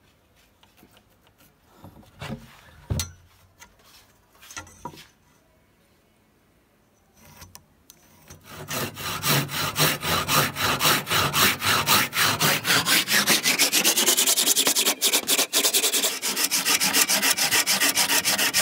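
Handsaw crosscutting a hardwood plank by hand, a steady rasping run of rapid back-and-forth strokes starting a little before halfway. Before it, only a few light knocks.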